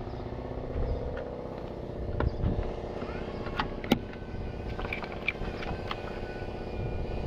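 A vehicle engine idling steadily, with a few sharp metallic knocks about two, three and a half and four seconds in.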